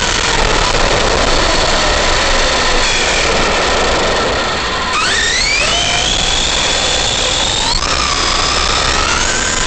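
Arrma Big Rock V3 RC monster truck's electric motor and gears whining as it drives over pavement, the whine rising in pitch twice as it accelerates, about halfway and near the end, over a steady rush of tyre and road noise. Heard from a camera riding on the truck.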